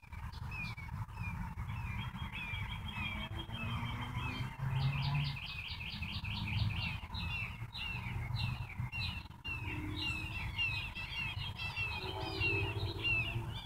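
Songbirds chirping and singing, with a rapid trill of about ten quick notes around five seconds in, over a steady low background rumble.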